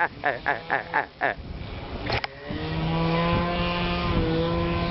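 OS 46 LA two-stroke glow engine of a model airplane running. For the first second or so its pitch swings rapidly up and down, several times a second. After a sharp click about two seconds in, it holds a steady note.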